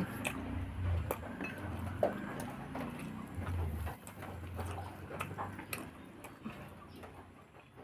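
Someone eating a meal: chewing with scattered small clicks and clinks of tableware.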